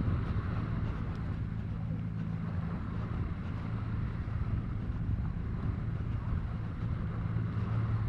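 Outdoor beach ambience: wind rumbling on the microphone, with a steady low engine-like hum under it.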